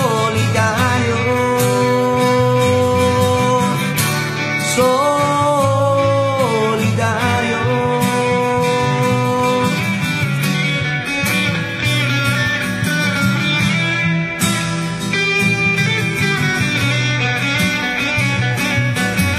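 Rock song's instrumental passage: guitars and bass with drum hits, a lead line holding long notes and sliding between them.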